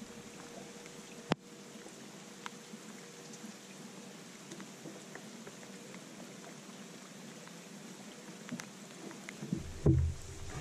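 Light rain hissing steadily on the lake, with scattered drops ticking on the boat and a faint steady hum from the bow-mounted electric trolling motor. A sharp click comes a little over a second in, and a heavier thump on the boat near the end.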